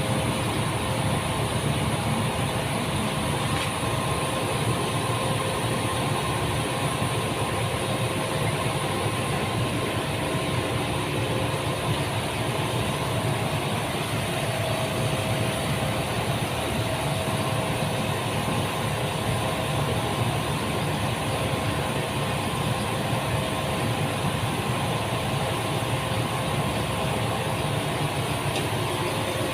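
Steady machine hum with a low rumble and faint constant tones, running without change.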